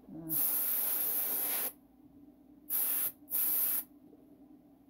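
Paint being sprayed onto foam pumpkin props in three hissing bursts: one of about a second and a half, then two short ones close together about three seconds in.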